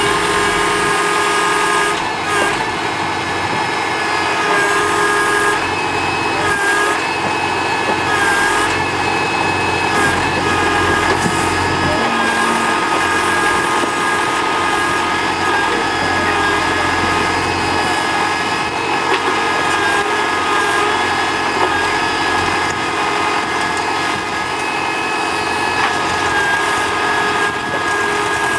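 TAFE tractor-mounted backhoe's diesel engine running steadily while the hydraulic boom digs, with a steady high whine over the engine note.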